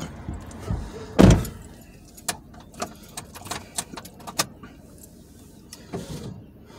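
A single dull thump about a second in, then scattered light clicks and rustles of food and wrappers being handled inside a car, with a softer knock near the end.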